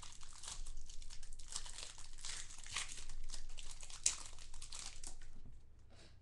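Crinkling and rustling of clear plastic card sleeves and holders as trading cards are handled and slid into them, dying down near the end.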